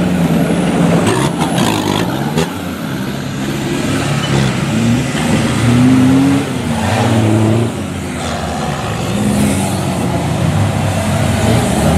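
Off-road 4x4 trial truck engines revving hard under load, the pitch rising and falling again and again as they work up a steep sand bank.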